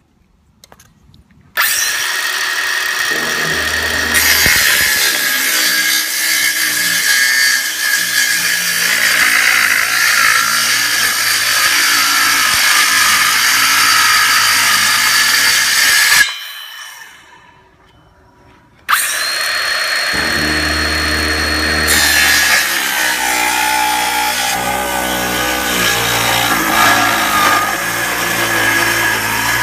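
Power saw cutting 3/4-inch plywood. It starts a second or so in, stops for a couple of seconds about halfway, then runs again.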